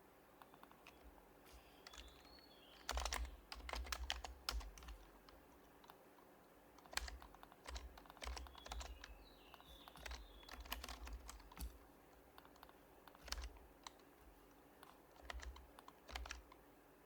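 Typing in short runs on an HHKB Professional Hybrid Type-S keyboard, with its Topre keys, broken by pauses of a second or two between the runs.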